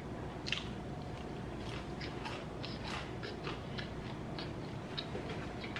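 A person chewing a bite of fried chicken strip: irregular small crunches and mouth clicks, roughly two or three a second.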